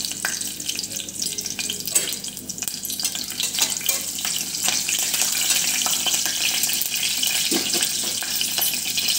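Green chillies and whole spices sizzling and crackling in hot oil in an aluminium pressure-cooker pan, as a spatula stirs them with occasional clicks against the pan.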